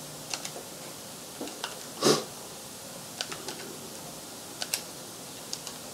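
Light clicks of calculator buttons being pressed, scattered and irregular with pauses between them, and one louder short noise about two seconds in.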